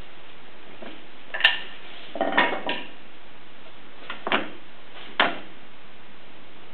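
Wooden winding sticks and a long wooden straightedge being handled and set down on a planed board, making sharp wood-on-wood clacks. There is one about a second and a half in, a quick cluster of three around two and a half seconds, and single ones near four and five seconds.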